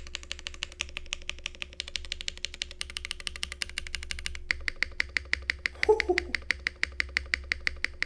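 Fast typing on a Fox Lab Time 65 mechanical keyboard, a foamless build with an aluminium flex-cut plate, Swagkeys Ghost Dragon factory-lubed long-pole switches and PBTFans ABS keycaps. It is a rapid run of keystrokes, about ten a second, that sounds full and lively with no case resonance or hollowness.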